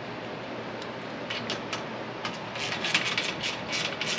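Hand ratchet clicking in short bursts, about three or four a second, as the bed rack's load-bar bolts are tightened; it starts about a second in and grows louder from about halfway.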